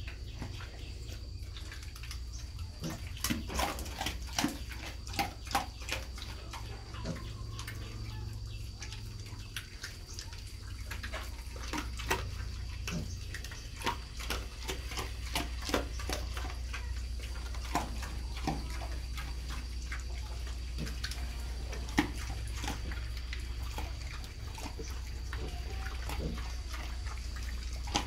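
A sow and her piglets eating dried corn kernels off a concrete floor: irregular crunching and wet smacking as they chew, with one louder crack about three-quarters through, over a low steady hum.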